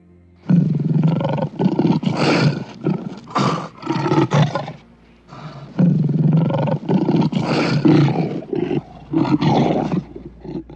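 Lion roaring in two long bouts, each a run of short, loud calls, the first starting about half a second in and the second about halfway through.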